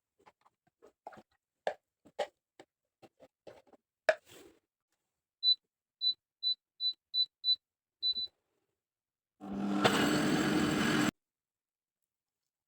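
Small clicks and knocks as a kitchen appliance is handled, then its control panel gives seven short high beeps as buttons are pressed. Its motor then runs for about a second and a half and stops abruptly.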